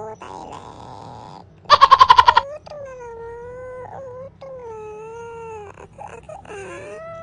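Domestic cat meowing: a loud, rapid stuttering cry about two seconds in, then several long, drawn-out meows that waver up and down in pitch.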